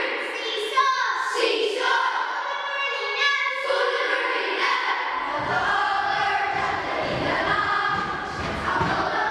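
A group of schoolchildren singing together as a choir, with a low accompanying sound joining about five seconds in.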